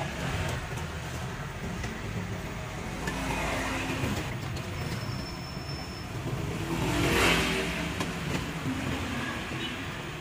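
Street traffic running steadily, with a vehicle passing close by about seven seconds in, the loudest moment.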